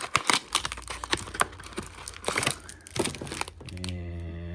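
Packaging of trading-card hanger boxes crinkling and tearing as they are opened by hand, with many quick crackles and snaps. A brief low steady hum comes in near the end.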